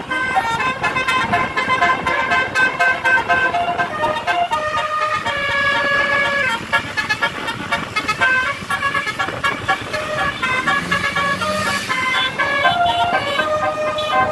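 Bus telolet horn, a Basuri-type multi-tone air horn, playing a melody of held notes that step up and down in pitch. Vehicle and road noise runs underneath.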